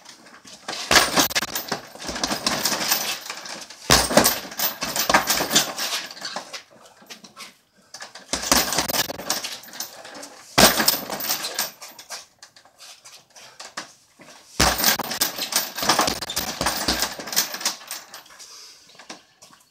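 An 80 lb heavy bag being hit in about five flurries of punches, each opening with a heavy thud and followed by a run of thuds and the hanging chain jangling, with short pauses between.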